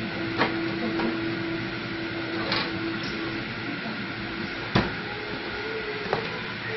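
Refrigerator door handling and a plastic jug being taken out: a few sharp clicks and knocks, the loudest about two-thirds of the way in, over a steady hiss, with a low steady hum for the first few seconds.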